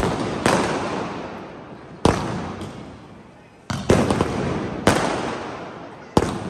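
Diwali fireworks going off overhead: about six sharp bangs at irregular gaps of one to two seconds, each trailing off in crackle that fades over the next second.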